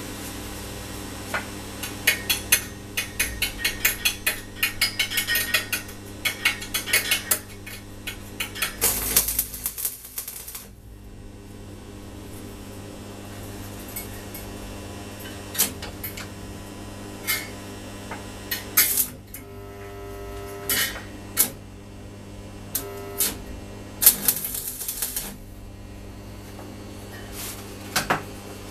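Stick welding on steel rod: a run of quick light metallic taps for several seconds, then two short bursts of welding-arc crackle, about nine seconds in and again about 24 seconds in, with scattered single clinks of metal between, over a steady electrical hum.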